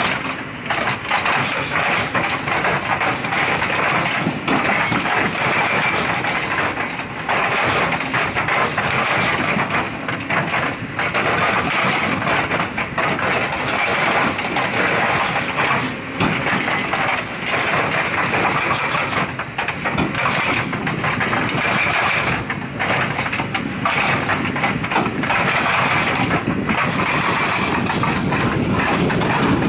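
An engine running steadily, with frequent brief dips in level.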